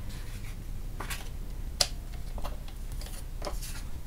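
Cardstock being handled on a Fiskars paper trimmer: a handful of light clicks and taps as the cut piece is lifted off and the sheet repositioned, the sharpest a little under two seconds in.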